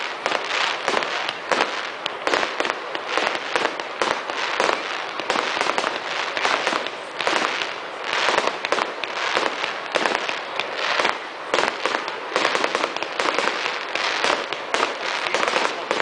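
Fireworks display: a dense, continuous barrage of bangs and crackles as several shells burst overhead at once, many sharp reports each second with no pause.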